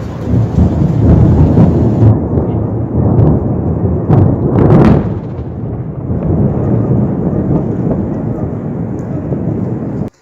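Thunder rumbling loudly, with a sharper crack about four to five seconds in. The sound cuts off abruptly near the end.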